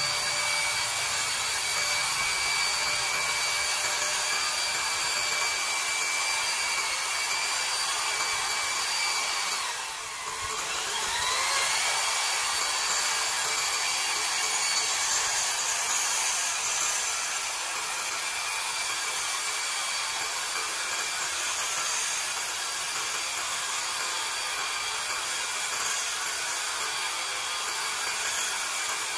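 A 220 V electric diamond-chain concrete saw running and cutting into a concrete post, giving a steady high grinding whine. About ten seconds in, the sound dips briefly and the motor's whine rises back up as the cut carries on.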